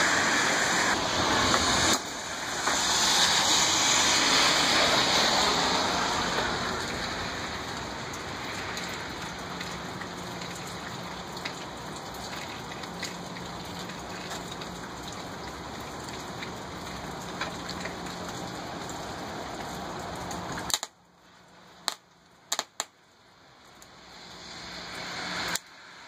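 Steel coat-hanger wire sizzling with a steady hiss as it burns and sparks under the heavy current of a rewound microwave-oven transformer. It is loudest for the first few seconds, then settles into a quieter hiss with a faint low hum, which cuts off suddenly about 21 seconds in; a few sharp clicks follow.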